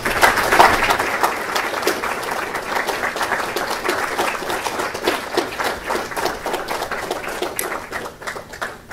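Audience applauding: many people clapping, starting suddenly and slowly thinning out toward the end.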